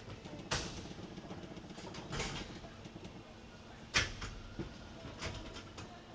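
Roller hockey play: a handful of sharp knocks from sticks, puck and boards, the loudest about four seconds in, over a steady low rumble.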